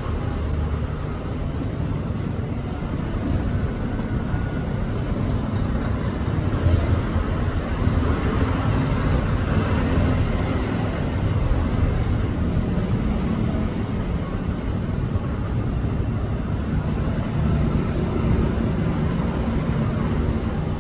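Steady engine rumble of a motor vehicle or heavy machine.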